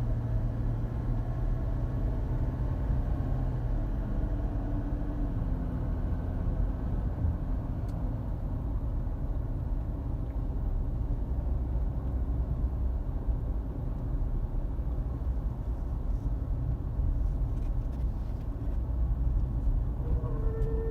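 2012 Volkswagen Touareg TDI driving: steady engine and road rumble, with a faint high whine setting in near the end. The whine is the unexplained metal-on-metal sound from the front passenger side that a new pulley, tensioner and driveshaft support bearing have not cured.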